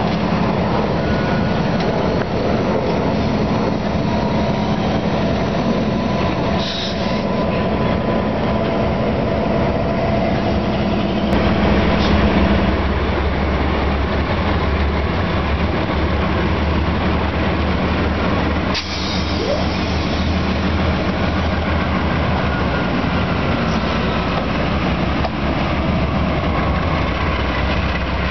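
Norfolk Southern diesel-electric freight locomotives running past, a steady rumble of diesel engines and rolling wheels. The engine note drops lower about eleven seconds in as another unit comes by.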